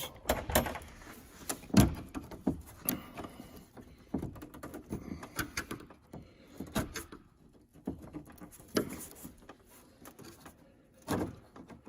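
Irregular metallic clicks and knocks of a flat screwdriver working the door lock mechanism inside a truck door, prying the lock's retaining clip off.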